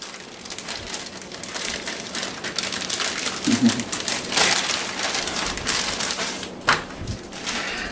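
Plastic packaging crinkling and rustling as it is handled, with a few louder crackles.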